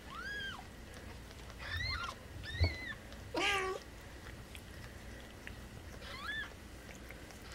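Newborn kittens mewing: about five short, thin, high squeaks spread out, and one lower, louder call that falls in pitch about three and a half seconds in. A brief knock comes just before it.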